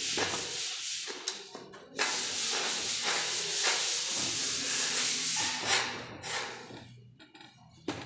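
A hand tool scraping and rubbing over plaster of Paris on a ceiling in repeated rough strokes, pausing briefly near the end.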